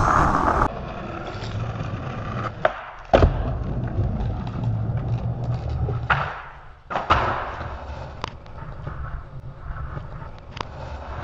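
Skateboard wheels rolling on asphalt, a steady low rumble, with a few sharp clacks, the loudest about three seconds in.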